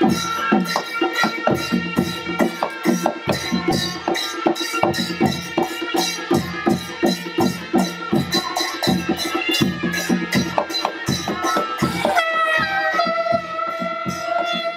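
A traditional Nepali band of drums and horns plays a dance tune live: drums keep a dense, steady beat under a held wind-instrument melody, which stands out clearly near the end.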